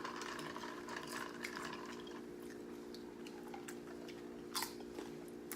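Someone chewing crunchy Doritos nacho chips: soft, wet chewing clicks, with a couple of sharp crunches about four and a half seconds in and again near the end, over a steady low hum.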